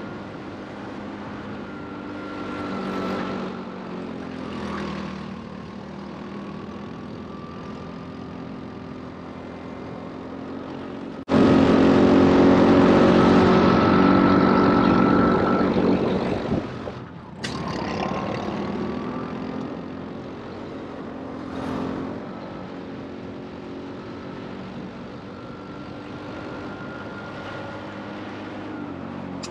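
Racing go-kart engine running under load, its pitch rising and falling as it speeds up and slows through the corners. About eleven seconds in, the sound turns suddenly much louder for about five seconds, then drops back.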